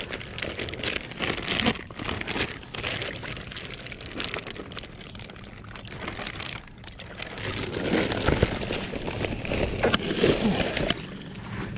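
Water splashing and pattering as a plastic bag of golden shiners is tipped out into the shallow edge of a pond, with the bag crinkling. It gets louder about eight seconds in.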